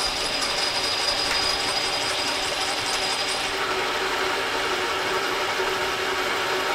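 Small metal lathe running under power on a threading pass, its gears and feed whirring steadily while the tool takes a light cut. A sharp click right at the end.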